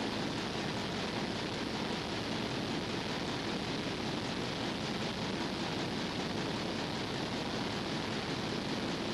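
A steady, even hiss that does not change.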